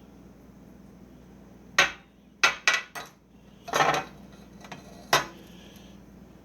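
Six sharp knocks and clinks of hard objects being handled, most in a quick run between about two and three seconds in, then a short scrape and one last knock about five seconds in.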